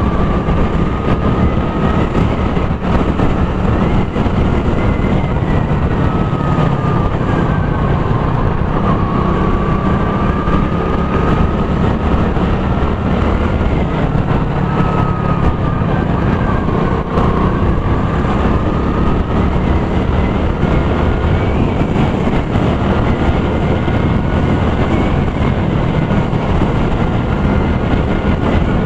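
Motorcycle riding noise heard through an action camera's microphone: steady loud engine and rushing-air noise. A thin whine dips and rises in pitch a few times as the revs change.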